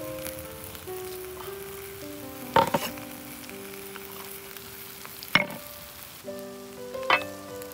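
Meat, onions and peppers sizzling in a large steel pan under hot flat stones, stirred with a wooden spatula that knocks sharply against the stones or pan three times, about two seconds apart. Soft background music with held notes plays under it.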